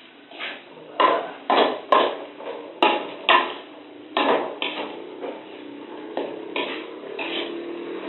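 Metal spatula clanking and scraping against a metal wok as rice is stir-fried, about a dozen irregular strikes, thickest in the first half.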